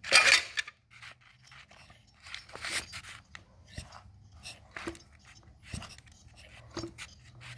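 Chainsaw parts being handled: light clicks, taps and rustling as plastic and metal pieces are picked up and moved about, with one louder rustle at the start.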